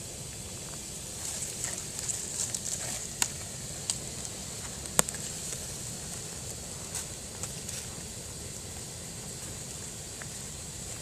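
Campfire with burning bamboo stalks crackling and sizzling, with scattered small snaps and one sharper crack about five seconds in; no full bamboo pop.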